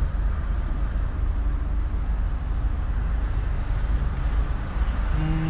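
Steady low rumble of a car idling at the roadside with traffic noise around it, and a brief low hum about five seconds in.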